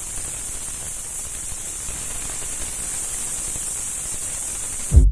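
A large colony of bats in a cave, their many high-pitched squeaks running together into a steady hiss. Music with a heavy beat starts right at the end.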